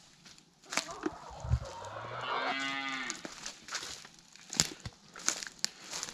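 A farm animal calling once: one drawn-out, pitched call of about a second and a half that drops in pitch as it ends, with footsteps crunching on dry leaf litter around it.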